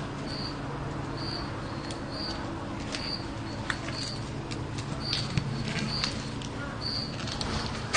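High, short chirps repeating about once a second, with scattered light clicks over a steady low hum.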